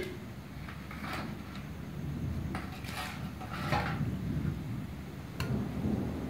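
Metal spoon clinking and scraping against an aluminium cooking pot as boiled rice is spooned in, several separate knocks over a few seconds.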